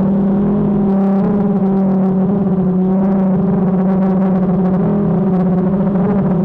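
DJI quadcopter's motors and propellers running with a steady, high hum and a stack of overtones, heard up close from a camera mounted on the craft. The pitch shifts slightly about a second in as the motors adjust.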